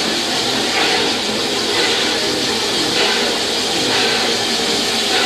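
Steam locomotive Reno heard from inside its cab while working: a steady hiss of steam over the noise of the engine.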